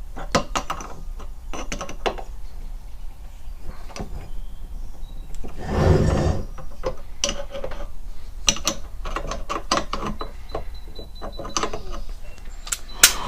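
Scattered metallic clicks and clinks of hand tools working the screws on an Atlas lathe's countershaft bracket, with a duller rattle about six seconds in and a quick run of clicks a couple of seconds later.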